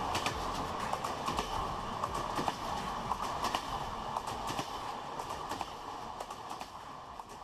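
Train wheels clattering over the rails in quick, irregular clicks above a steady rumble, fading gradually toward the end.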